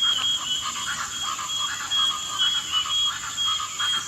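Jungle ambience: frogs croaking in short repeated pulses over a steady high-pitched insect drone.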